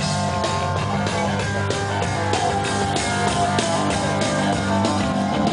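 Rock music with guitar and drums, played at a steady beat.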